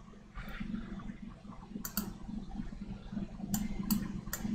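A few sharp clicks, a pair about two seconds in and three more near the end, over a steady low hum.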